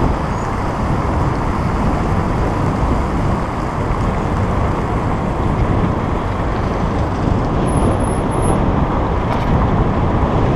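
Steady rushing of wind on the microphone and road noise while riding a bicycle fast along a road lined with jammed traffic.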